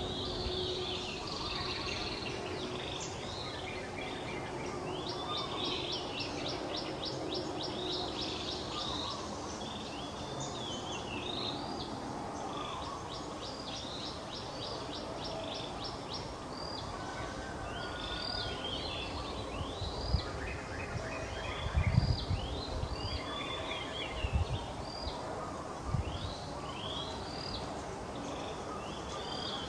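Birds chirping over and over, with several rapid trills, against a steady outdoor background hum. A few low thumps come about two-thirds of the way through.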